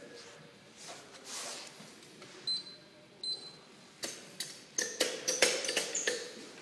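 Stainless steel ADA push-plate door switch pressed by hand over and over, a quick run of clicks and knocks from about four seconds in. The switch has failed, and the doors do not open. Two short high beeps come just before the presses.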